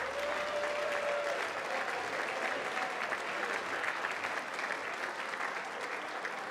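Hall audience applauding, a dense, even clapping that eases slightly toward the end. A single held tone sounds over it in the first second or so.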